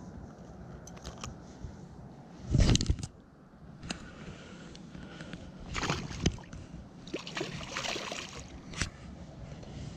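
Water splashing and sloshing as a smallmouth bass is dropped back into shallow water and swims off, about seven to eight seconds in. Before that, handling noise, with a loud low thump about two and a half seconds in.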